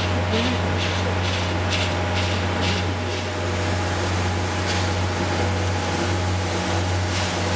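C11-class steam tank locomotive (No. 325) pulling slowly into a station. It gives a steady low hum and a hiss of steam, with soft regular beats about twice a second that die away about three seconds in.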